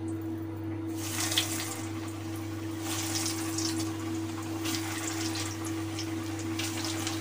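Breaded egg chops deep-frying in hot oil in a kadai: a steady crackling sizzle that swells about a second in.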